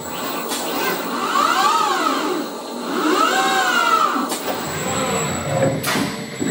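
Industrial robot arm's servo drives whining, the pitch rising and falling twice as the arm speeds up and slows through its moves, with three sharp clicks, the loudest near the end.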